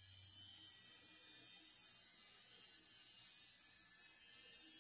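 Near silence: faint room tone with a high hiss, and a low hum that fades out just after the start.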